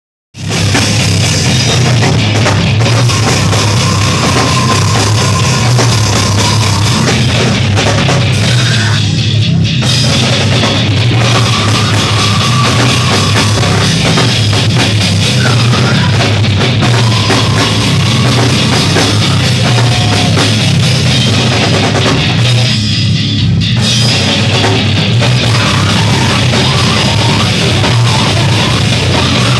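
Heavy metal band playing live at full volume, the drum kit driving the song, with a dense wall of sound throughout.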